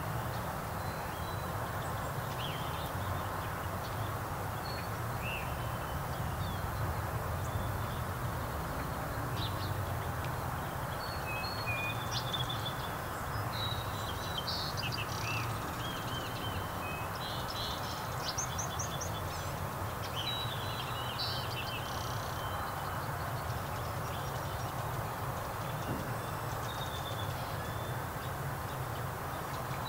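Birds chirping and trilling in short scattered calls, thickest in the middle stretch, over a steady low rumble, the running noise of a moving train.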